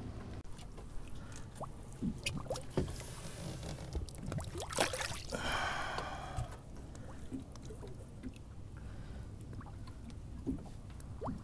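Water splashing and pouring at the side of a small boat, with a louder rush of water about five seconds in that lasts a second or so, over a steady low rumble. Scattered light clicks and knocks of fishing tackle being handled.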